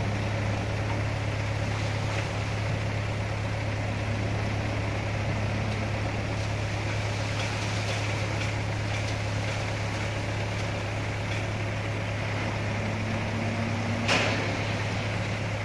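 A dump truck's diesel engine runs steadily with its bed raised to tip dirt. About fourteen seconds in, a brief loud burst of noise stands out over the engine.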